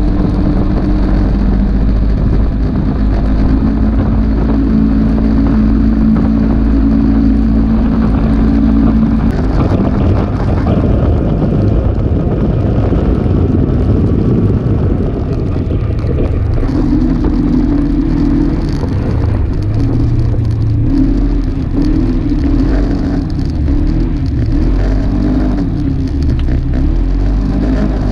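Polaris RZR 570 side-by-side's single-cylinder engine running while driving. Its pitch holds steady for about the first nine seconds, turns rough and uneven, then settles at a new steady pitch about seventeen seconds in, over a constant rushing noise.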